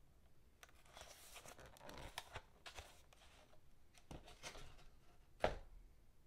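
Faint rustling and light knocks of cardboard packaging being handled, with one sharper tap about five and a half seconds in.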